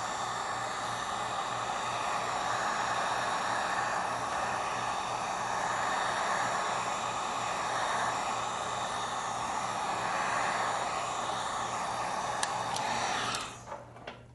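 Small Wagner heat gun blowing hot air with a steady rushing noise and a low motor hum, heating the tablet's screen to soften its adhesive. It cuts off abruptly about a second before the end, just after a few light clicks.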